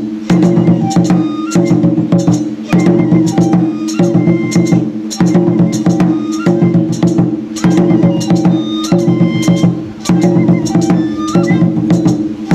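Traditional Japanese ritual dance music: drums and wooden percussion strike in a steady repeating pattern, over a low sustained sound that comes in phrases about every second and a bit, with short high notes.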